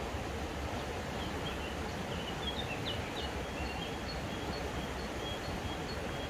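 A small songbird singing short high chirps and a repeated high note from about a second in, over a steady rushing outdoor background noise.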